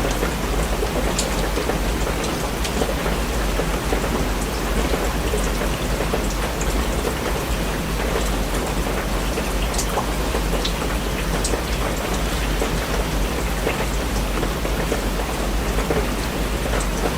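Steady rain falling, with a few separate drops ticking sharply here and there over a constant low rumble.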